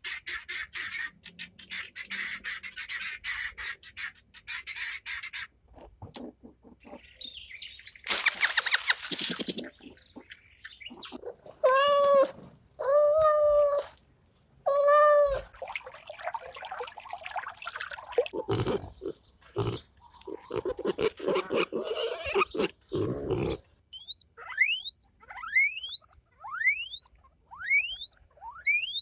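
A string of different animal calls, one after another: rapid chirring at first, then a loud noisy burst, three drawn-out calls with a wavering pitch, and a run of quick rising chirps near the end.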